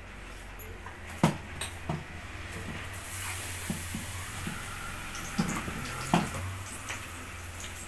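A spoon clinking a few times against a steel bowl as pakora batter is stirred, over the steady hiss of oil sizzling as spinach-leaf pakoras deep-fry in a kadhai.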